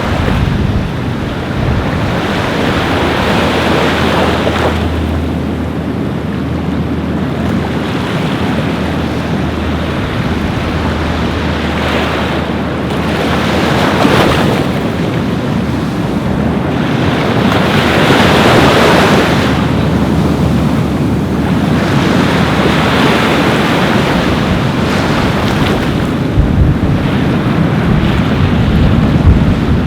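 Ocean surf breaking on a beach, the wash swelling and fading every few seconds, with wind rumbling on the microphone.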